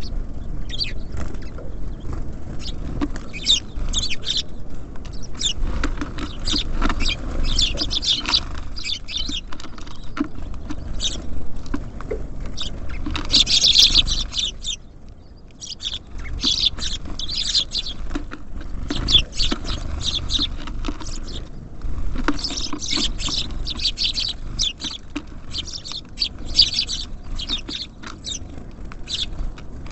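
Small songbirds chirping busily at a bird feeder: many short, high chirps in quick succession, easing off briefly about fifteen seconds in, over a low steady rumble.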